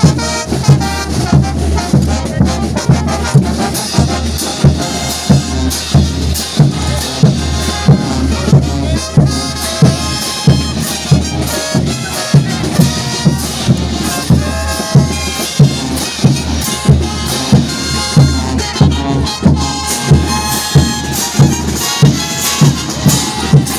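Bolivian brass band playing: trumpets and trombones over a steady bass drum beat, about two beats a second.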